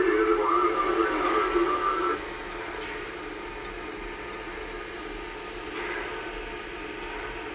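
Sound system of Lionel Legacy model steam locomotives standing in a yard: a wavering tone at two pitches for about the first two seconds, then a steady hiss.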